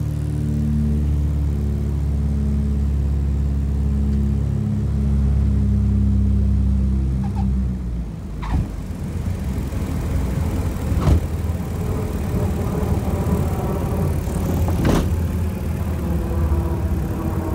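Britten-Norman Islander's twin engines droning steadily inside the cabin on approach. About eight seconds in the engine note drops, and several sharp thumps and rattles follow as the plane touches down and rolls along the runway.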